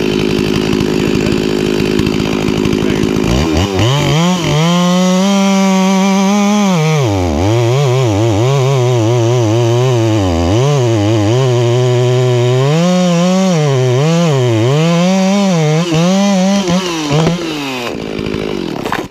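Chainsaw cutting through an oak, running steadily at first, then revving up about three and a half seconds in. Its pitch sags and recovers again and again as the chain loads in the cut, and it cuts out near the end.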